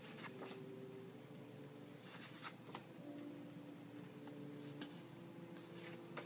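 Pen writing on index cards: faint, scattered scratching strokes of the tip on card, over a faint steady hum.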